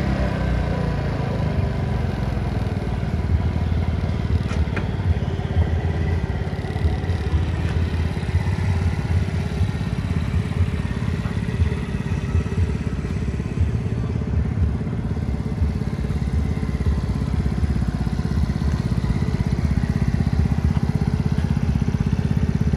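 Maddog Generation 1 scooter engine idling steadily with an even low throb. It settles to idle at the very start after a blip of the throttle.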